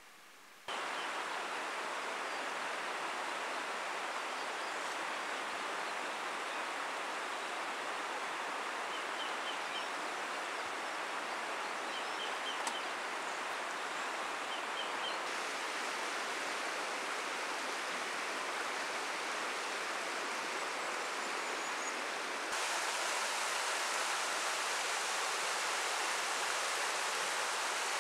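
River water rushing over shallow gravel rapids: a steady rush that gets louder about three-quarters of the way through. Faint short bird chirps come in small groups midway.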